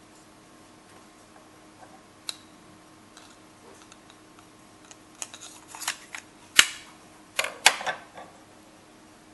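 A Smith & Wesson fixed-blade knife being handled and slid into its hard plastic sheath. There is light handling noise, then a run of sharp plastic-and-steel clicks, the loudest two about six and a half and seven and a half seconds in as the blade goes home in the sheath.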